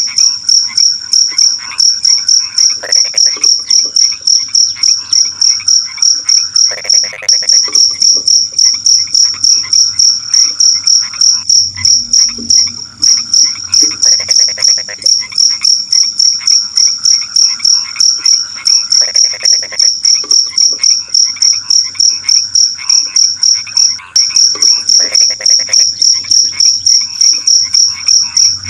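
A cricket chirping loudly in a steady, rapid run of even, high-pitched pulses. Frogs croak in short bursts every few seconds underneath it.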